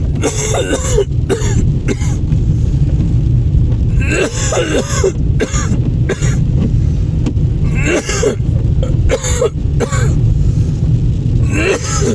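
A man coughing in several harsh bouts, with throat clearing, inside a moving car over the steady low rumble of the engine and road.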